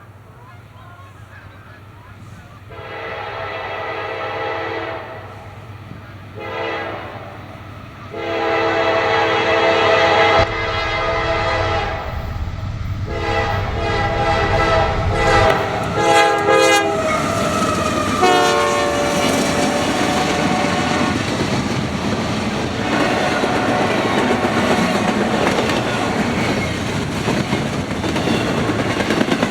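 Freight train locomotive horn sounded in a string of long and short blasts over about twenty seconds, then the train passing close by with a steady rumble and wheels clacking over the rail joints.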